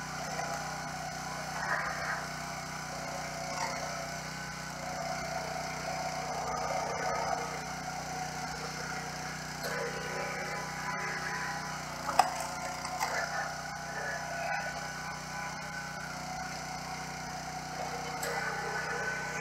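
A Forest King Pro 30-ton log splitter's small gas engine running steadily while the hydraulic ram pushes logs through the wedge. A single sharp crack comes about twelve seconds in.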